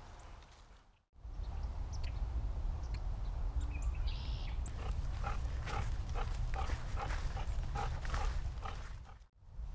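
A dog panting, about two to three quick breaths a second, starting about halfway through over a steady low rumble.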